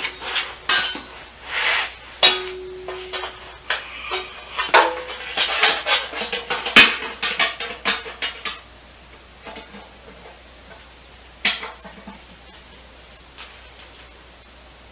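Metal clinking, rattling and scraping as a metal transmission dust shield is worked into place on the bellhousing of a 727 automatic transmission. There are busy clanks for the first eight seconds or so, then only a few single clicks.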